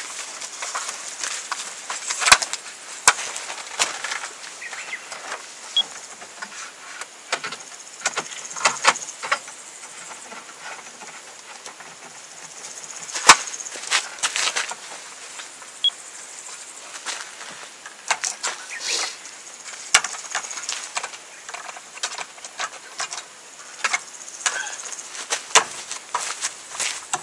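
Car-side awning being set up by hand: the rolled fabric rustles and flaps as it is pulled out and raised, while its metal poles and fittings click and clack irregularly, with a few sharp knocks.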